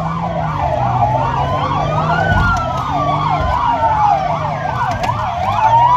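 Police car sirens: one warbles rapidly up and down, about four times a second, while a second wails slowly up and down over a couple of seconds. They are heard from inside a following car, over its engine and road rumble.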